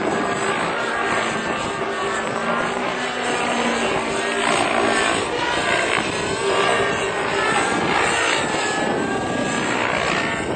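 Raptor 90 radio-controlled model helicopter in flight: its nitro glow engine and rotor whine, the pitch wavering up and down as it manoeuvres.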